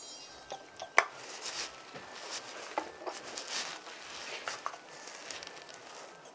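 Handheld vacuum pump drawing the air out of plastic suction cupping cups on a person's back: a series of sharp clicks, the loudest about a second in, with short hisses of air between them.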